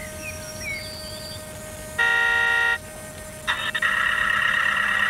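A single horn blast lasting under a second, near the middle, typical of an RC model truck's sound-module horn. Faint bird chirps come before it, and from about three and a half seconds a steady mechanical running sound starts.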